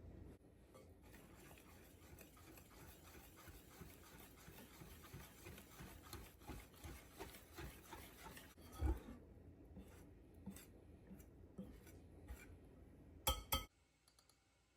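Faint kitchen handling sounds: soft rubbing and scraping with scattered light taps, a single knock about nine seconds in, and a brief clatter of a few sharp knocks near the end.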